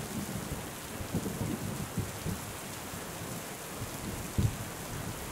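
Steady rain hiss with low thunder rumbling, the rumble dying away over the first few seconds, and a short low burst of thunder about four seconds in.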